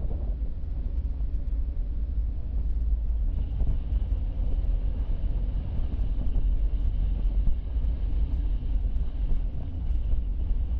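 Car driving steadily, its engine and tyre rumble picked up by a dashcam as a steady low drone. A faint high steady tone joins about three seconds in.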